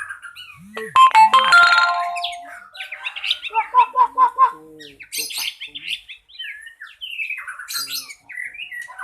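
White-rumped shama singing: varied whistles, chirps and downward glides, with a quick run of repeated notes about halfway through. About a second in, a brief sound of several steady held tones cuts across the song.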